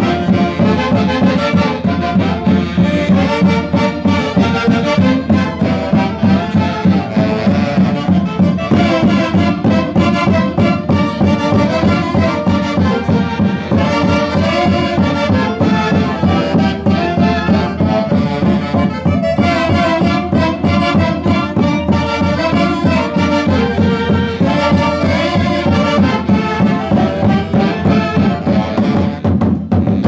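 Andean folk band music played loudly and without a break: wind instruments carrying the tune over a steady dance beat.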